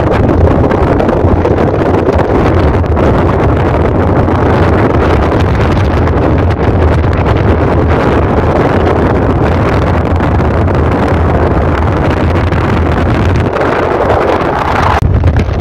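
Wind buffeting the phone's microphone from a moving car, over the car's steady road and engine rumble. The sound changes abruptly near the end.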